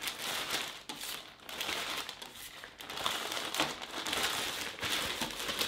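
Plastic zip-lock bag crinkling and rustling as it is sealed and pressed flat around packets wrapped in foil and newspaper.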